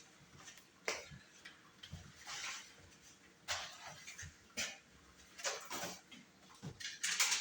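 Kitchen items handled at a counter during cooking: scattered light clicks and knocks with short rustles in between, and a quick cluster of clicks near the end.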